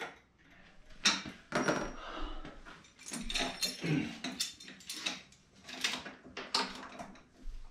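Metal clinks and knocks of a Bowflex home gym's steel cable hardware being handled: a string of irregular sharp clacks, about a dozen, as the cable, its clips and its handle are worked.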